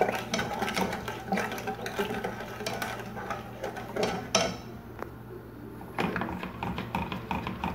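A spoon stirring a thickening chocolate sauce in an aluminium pot, scraping and knocking against the sides and bottom in a quick, repetitive rhythm. It pauses briefly about four and a half seconds in.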